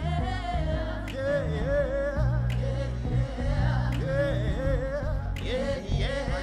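Live gospel band with bass and drums playing, with a lead singer's wordless vocal runs over it and a couple of cymbal crashes.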